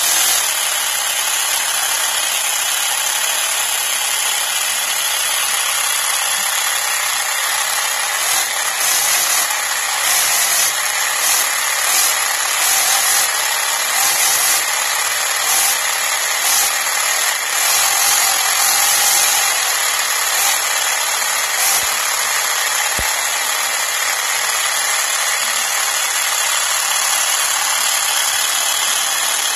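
3D-printed blown Hemi V8 model engine running on its first startup, a small electric motor spinning the printed crank, belts and supercharger with a steady, high-pitched mechanical whirring clatter, like a small drill.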